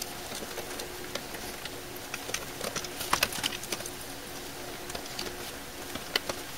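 Power-supply cables and plastic connectors being handled inside a computer case: rustling and small clicks, busiest a couple of seconds in and again once near the end.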